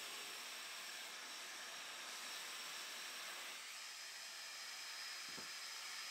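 Faint steady hiss, even and unchanging, with a faint soft knock about five seconds in.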